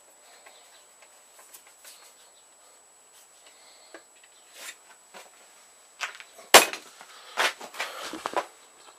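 Hand screwdriver driving a screw through a metal plate into a wooden stock, with faint creaks and ticks. From about six seconds in come several sharp knocks and clatters, the loudest a single knock soon after.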